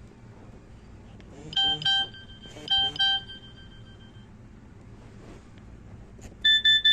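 Nokia 6288 ringtones from the phone's small speaker: two pairs of short electronic beeps about a second apart, then near the end a different, higher and quicker beeping tone begins.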